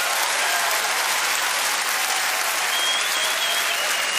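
Theatre audience applauding, a steady dense clapping that holds at the same level throughout.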